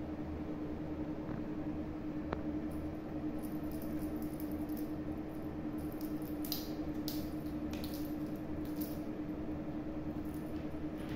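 Kittens playing with a feather teaser wand on a tile floor: scattered light ticks and rustles from about three seconds in, over a steady low hum.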